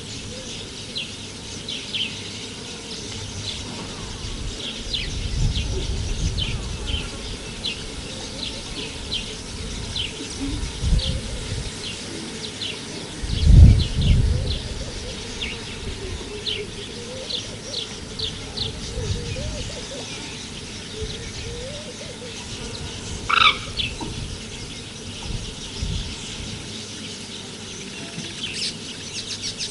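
Small birds chirping over and over, short high chirps a little under a second apart, with a louder call about two-thirds of the way in. Several low rumbles come and go beneath them, the loudest about halfway through.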